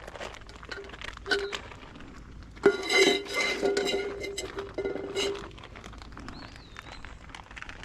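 Metal cookware clinking and clanking, with a louder clang about two and a half seconds in that rings on for a couple of seconds.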